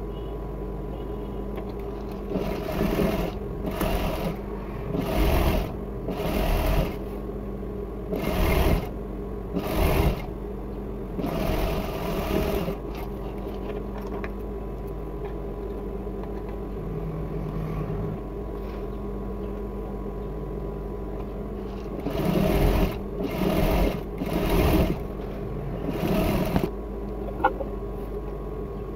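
Sewing machine stitching in about a dozen short runs, stopping and starting as the fabric is guided, with a steady hum underneath between the runs.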